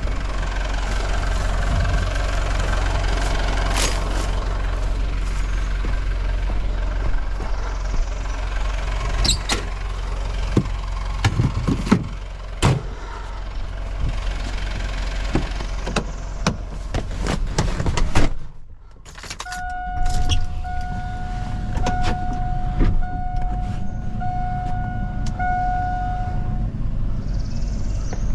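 A vehicle engine running with a steady low rumble, with scattered knocks and rattles. About two-thirds through the sound drops out briefly, then an electronic warning beeper sounds about six times, roughly once a second.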